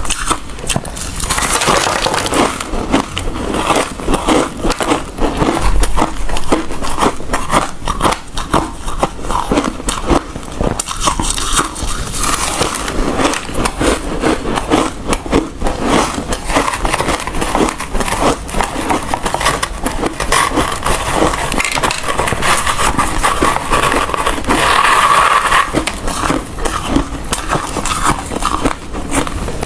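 Hard ice being bitten and chewed close to the microphone, a dense run of sharp crunches and crackles.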